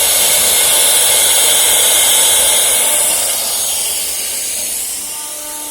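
CNC router's spindle running during a test run: a loud, steady hissing whine that grows quieter after about three seconds.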